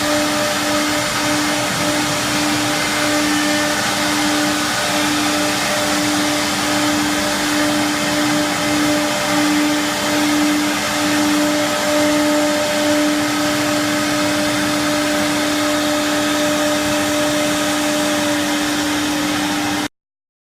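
Three-head wood CNC router running, a steady electric hum over a rushing noise, with a slight regular pulsing in the hum; it cuts off suddenly near the end.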